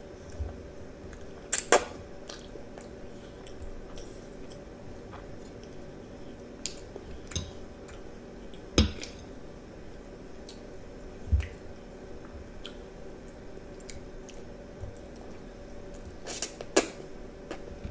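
A child eating spaghetti with a metal fork: a few sharp clinks of the fork against the plate, the loudest around 2, 9, 11 and 17 seconds in, between quieter chewing and slurping of the noodles. A faint steady hum lies underneath.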